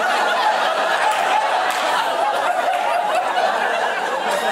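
Club audience laughing together at a joke: a loud, sustained wash of many overlapping laughs.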